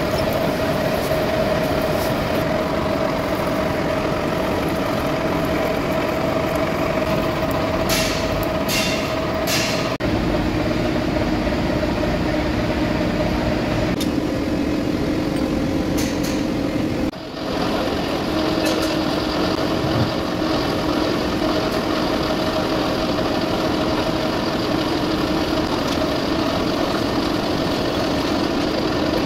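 Metal lathe running steadily while turning a solid iron spindle, a constant machine noise with a held tone in it. Three short clicks come about a third of the way in, the tone drops lower soon after, and the sound dips briefly a little past halfway.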